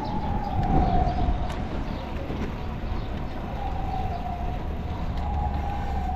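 Emergency vehicle siren: a single tone that sags slightly in pitch, fades and returns several times, over a steady low rumble of street traffic.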